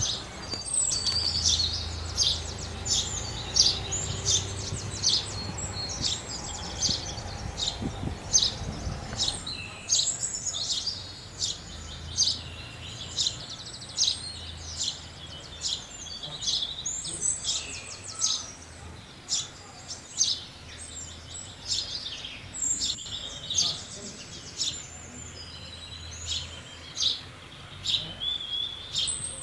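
A flock of house sparrows chirping continuously, many short overlapping chirps, over a faint low background rumble.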